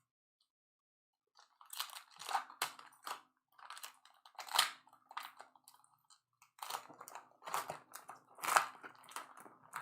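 Crinkly rustling and crunching of trading-card pack wrappers and cards being handled, in irregular bursts starting about a second and a half in.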